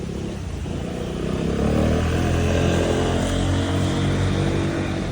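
A motor vehicle driving past, its engine hum and tyre noise building to the loudest about two seconds in, then fading.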